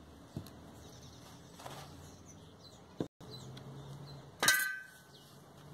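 A clay pot and small pebbles being handled on a table: a few scattered light knocks and clinks, the loudest a short ringing clink near the end.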